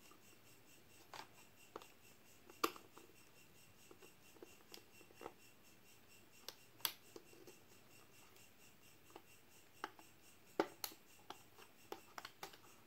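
Small screwdriver prying along the edge of an HP 1000 laptop's keyboard: scattered sharp plastic clicks and ticks as the tip works into the gap and levers the keyboard up. Three louder snaps stand out, a few seconds in, about halfway and near the end.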